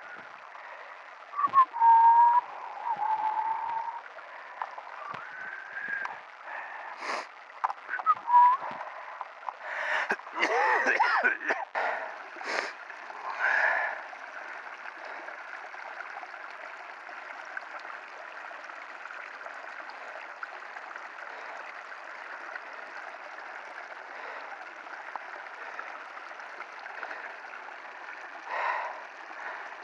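Small woodland stream trickling and gurgling steadily over wet ground, with a few short whistled calls and clicks in the first half.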